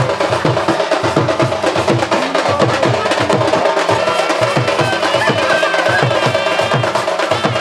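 Loud music driven by fast, busy drumming, with a steady held tone and a melody line over it.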